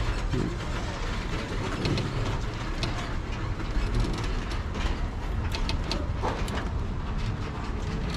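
Multi-car tour tram rolling along, heard from on board: a steady low rumble with occasional light clicks and rattles.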